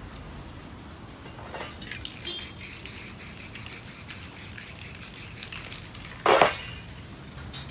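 Aerosol spray-paint can sprayed at a canvas in a quick run of short hissing puffs, then one louder, longer blast about six seconds in.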